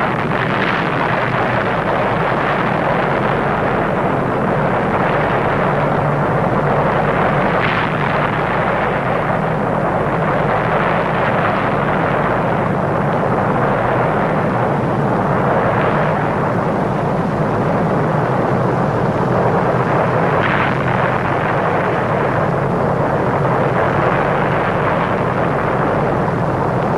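Dubbed explosion sound effect in its long rumbling tail: a loud, steady noise that swells and eases every few seconds, with a couple of brief sharper cracks.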